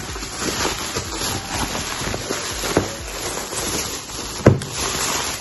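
Bubble wrap and plastic packaging crinkling and rustling as they are handled and pulled off a cardboard box, with one sharp knock about four and a half seconds in.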